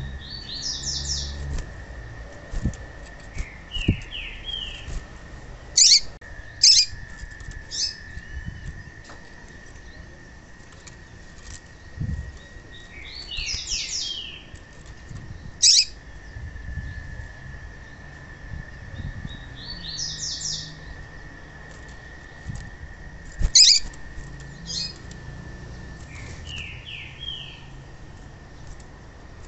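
Female papa-capim (yellow-bellied seedeater) calls: several bursts of quick, high chattering notes, some pitched higher and some lower, with a few sharp, loud single chips between them.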